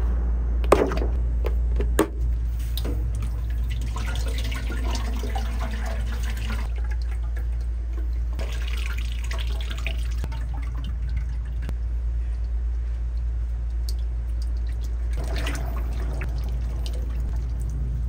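Liquid pouring in three spells of about two seconds each, over a steady low hum; two sharp knocks in the first two seconds.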